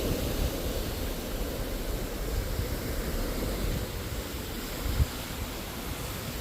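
Steady rush of ocean water with wind on the microphone, a low rumble under an even hiss, and a brief low thump about five seconds in.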